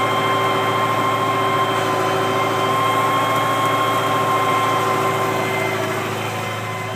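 John Deere 6010 tractor's diesel engine running steadily while pulling a four-furrow Kverneland plough, with a high steady whine over the engine note. The sound eases off slightly near the end.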